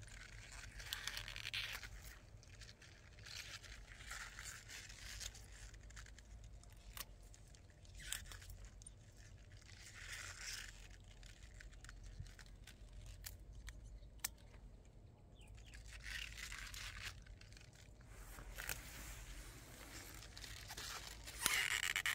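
Tulip and daffodil stems being cut with scissors and handled: a few short rustles and tearing sounds of leaves and stems, with scattered small snips and clicks.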